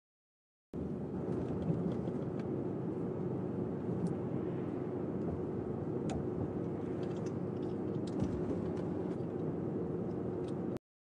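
Car cabin noise while driving: steady engine and road-tyre rumble with a steady hum and a few faint ticks. It cuts in abruptly about a second in and cuts off abruptly near the end.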